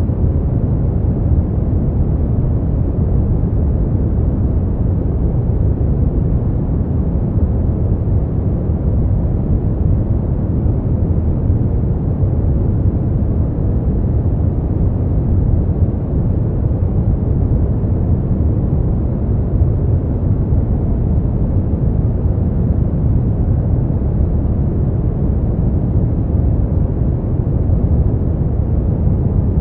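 Steady brown noise: an even, deep rumbling hiss, strongest in the bass and falling away in the treble, without any change or event.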